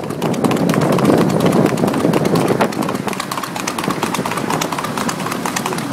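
Hooves of a trotting horse pulling a two-wheeled cart, clip-clopping quickly on a paved road, over a steady rushing noise.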